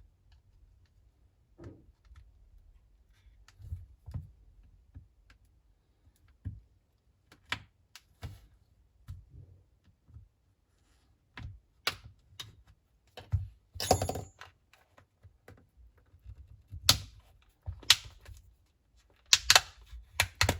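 Irregular small clicks, taps and scrapes of a pry tool and fingernail working around a Huawei P Smart 2019's back cover to open it. The clicks are sparse at first and grow closer together and sharper about halfway through, with the loudest cluster of snaps near the end.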